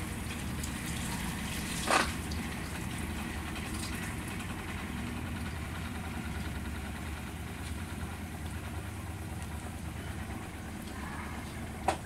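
Whirlpool Intellicarga top-load washing machine in its spin cycle, its motor and freshly repaired transmission giving a steady low hum as the drum turns. A sharp knock about two seconds in, and another near the end.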